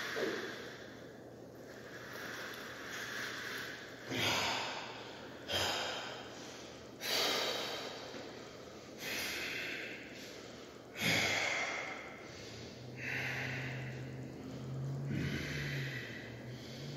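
A man breathing hard after an ab-roller set: heavy, noisy breaths in and out, one about every one to two seconds. A low steady hum joins in near the end.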